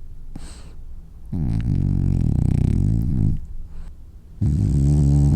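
French bulldog snoring: a faint breath, then two long, loud snores, the first lasting about two seconds and the second starting about four and a half seconds in.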